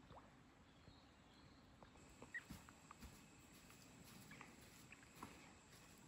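Near silence: faint forest ambience with scattered soft ticks and taps and a few brief high chirps, most of them from about two seconds in.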